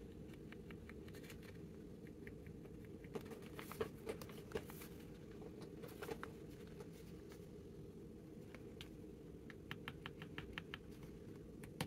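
Faint light ticks and paper sounds of a pencil marking the page of a paper signature, in a short cluster about four seconds in and another near the end, over a low steady hum.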